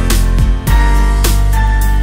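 Background instrumental music: sustained notes over a regular beat.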